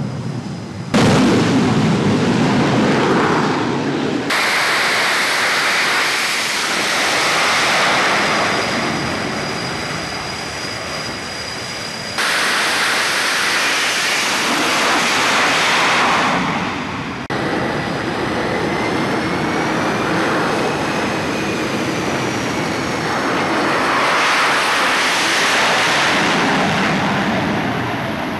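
Fighter jet engines running at high power on an aircraft carrier's flight deck: a dense roar with steady high whines, one of which slowly glides up and down. The sound changes suddenly about five times as shots are cut together.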